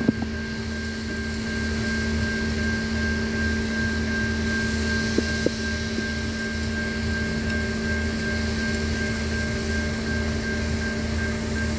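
Electronic level crossing warning bells ringing steadily as a train approaches, over a low pulsing hum, with two brief clicks about halfway through.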